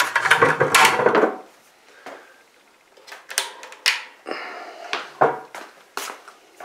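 Handling noises: a loud rustling rattle for about the first second, then scattered knocks and clicks as things are picked up and moved.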